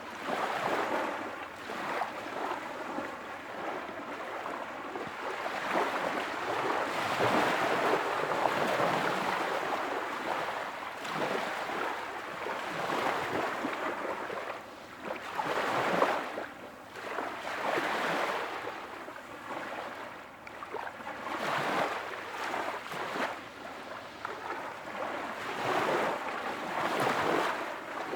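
Ocean waves washing in and out: a soft, continuous rushing that swells and ebbs every second or two.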